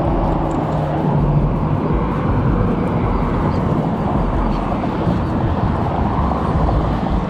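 Wind buffeting the camera's microphone: a steady low rumbling noise with no pauses.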